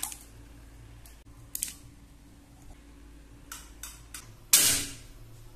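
Potato pieces dropped into a pot of water with small splashes, followed by a few short handling clicks. About four and a half seconds in comes a louder noisy burst lasting about half a second.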